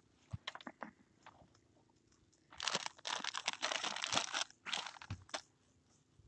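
Crackly handling noise from a phone being rigged up, its microphone rubbing and knocking against cloth. Scattered clicks come first, then a dense scraping crackle about two and a half seconds in that lasts nearly two seconds, then a few more clicks.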